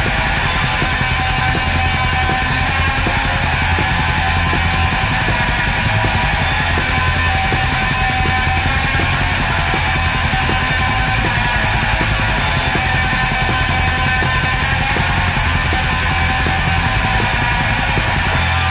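Loud, dense heavy metal music with guitar, running without a break.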